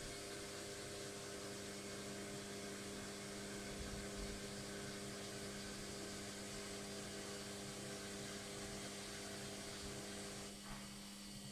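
Logik washing machine running on its spin, its motor giving a steady hum made of several constant tones. About ten seconds in, some of the higher tones drop out and the sound eases slightly.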